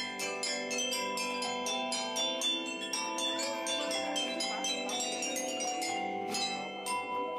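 An ensemble of tuned metal chimes (campanine: bell bars and tubular chimes) struck with mallets, playing a quick melody of overlapping ringing notes.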